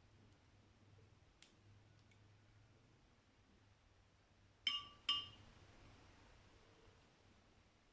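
Two sharp clinks of hard objects knocking together, about half a second apart past the middle, each ringing briefly. There is a faint tick earlier, and otherwise near silence.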